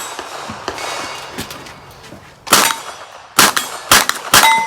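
Rapid gunshots at a steel-target stage: after a lull of about two seconds, four loud cracks come in quick succession, and the steel plates ring briefly after being hit.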